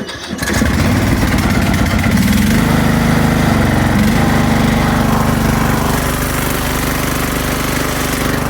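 Craftsman LT2000 riding mower's engine starting up about half a second in. It then runs steadily, its pitch shifting about two seconds in before holding even.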